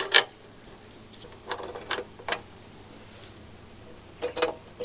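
Ratchet wrench with an extension clicking in short strokes, a few clicks at a time, as it tightens a bolt on a flail mower's mounting bracket.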